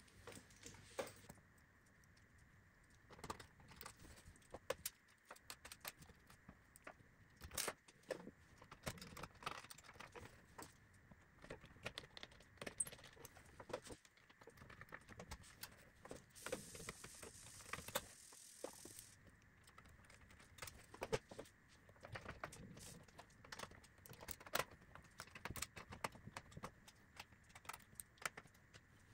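Scattered small clicks and light metallic clinks from hands and a small screwdriver working on an open receiver's metal chassis and front panel, irregular and faint.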